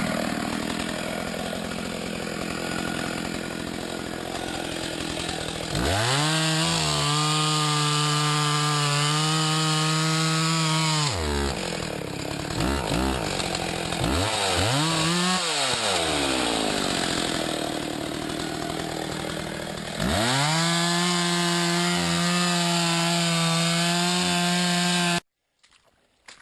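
Two-stroke chainsaw revved to full speed and held there twice for several seconds at a time, with quick revs up and down between, then cut off suddenly near the end.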